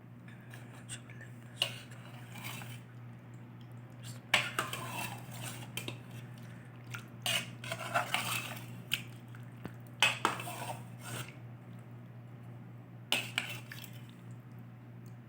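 Metal kitchen utensils clattering and scraping against pots and dishes in irregular bursts, loudest a little after four seconds, around eight seconds, at ten seconds and near thirteen seconds, over a steady low hum.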